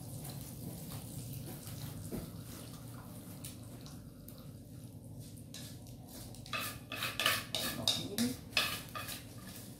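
Dishes and metal kitchen utensils clattering and knocking together in a run of irregular sharp strokes starting about two-thirds of the way in, over a steady low background hum.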